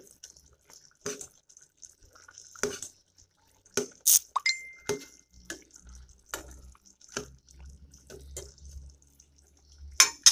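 Metal ladle stirring chicken pieces in sauce in a cooking pot: irregular clinks and scrapes against the pot, with wet sloshing of the sauce. One clink rings briefly about four seconds in, and the loudest knock comes near the end.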